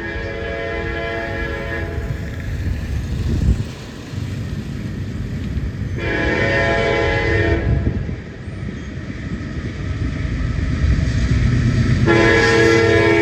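Locomotive air horn sounding in three blasts, a held chord of several notes: one running on at the start, a shorter one about six seconds in, and another starting near the end, over the steady low rumble of the passing train.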